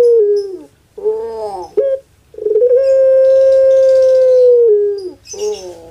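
Puter pelung dove (Streptopelia risoria) giving its long crowing coo. A long held note trails off with a falling drop, then a short bending note follows. Then comes another long held note of about two seconds that drops in pitch at its end, and a short falling note closes it.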